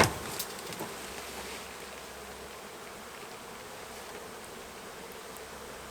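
A large honey bee colony buzzing steadily, exposed as a wall board is peeled away. A sharp crack right at the start, with a few lighter clicks in the first second.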